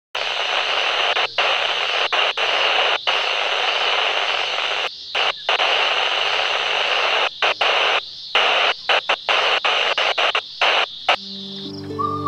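Handheld two-way radio (Motorola XiR P3688) hissing with loud static that keeps cutting out in many brief gaps, then stops about eleven seconds in.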